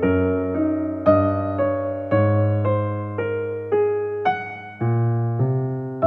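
Slow, gentle background piano music, single notes and chords struck about every half second to a second, each fading away before the next.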